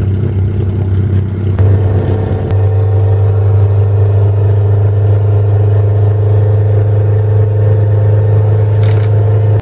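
Car engine droning at a steady pitch while driving, loud and even throughout, cutting off suddenly at the end.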